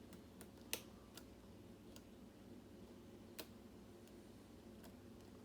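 Faint, scattered clicks of a hook pick working the pins of a pin-tumbler lock under tension, with two sharper clicks: one just under a second in, another past the middle.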